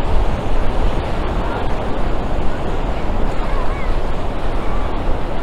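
Ocean surf breaking on a sandy beach, a steady wash of noise, with wind buffeting the microphone in a low rumble.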